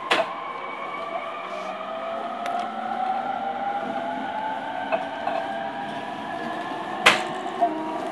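Traction motor and inverter whine of an E231 series refurbished-equipment EMU motor car, heard from the car floor. Several tones rise slowly in pitch over wheel and rail rumble as the train gathers speed. A few sharp clicks cut through, the loudest about seven seconds in.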